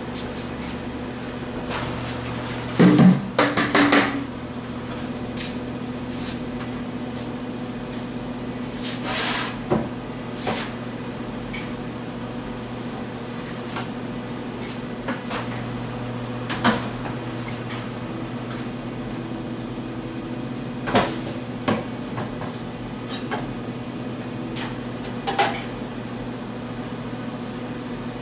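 Clatter and knocks from a metal tilt-out storage bin being opened and dry glaze material (dolomite) being scooped into a plastic bowl. The loudest clatter comes about three seconds in, followed by single knocks every few seconds, over a steady electrical hum.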